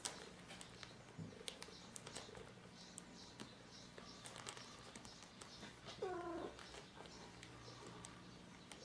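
A cat gives one short meow about six seconds in, over scattered faint clicks and a low steady hum.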